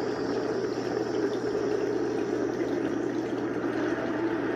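Steady low rushing noise of the slow-motion jet-fuselage bomb blast on a TV documentary soundtrack, picked up off the TV speaker. A soft held music tone comes in near the end.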